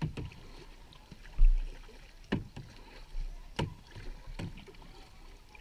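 Double-bladed kayak paddles dipping into calm water: about five sharp splashes at an uneven rhythm of a second or so. A loud low thump comes about a second and a half in.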